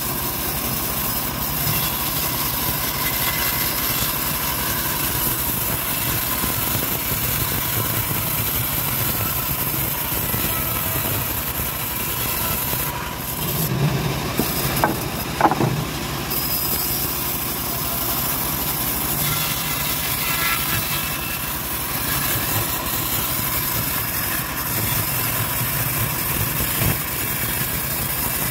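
A homemade bandsaw mill runs steadily while ripping a long acacia log, its drive and blade making an even mechanical drone. About halfway through, a short louder patch of knocks and a brief squeal stands out.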